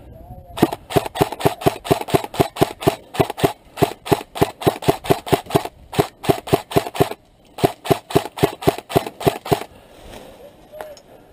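M4-style airsoft electric rifle firing a long, even string of shots, about five a second, with a short pause about seven seconds in.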